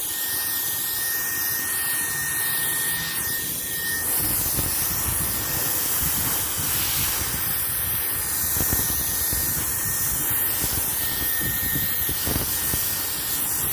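Handheld cordless turbo jet fan running at speed, blowing air: a steady strong hiss with a thin high motor whine, which is clearest in the first four seconds. From about four seconds in, a low fluttering rumble joins the hiss as the air stream buffets the microphone.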